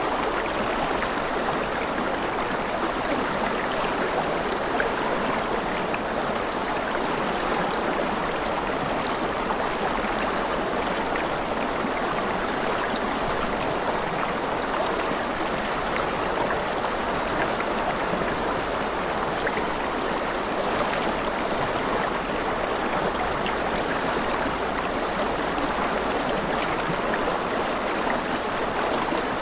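River water rushing over rocks: a steady, even wash of flowing water with no change throughout.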